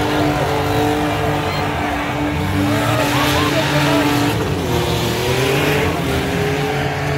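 Several junk cars' engines running hard down a drag strip. One engine note holds steady for about four seconds, then another climbs, with shouting from the crowd over it.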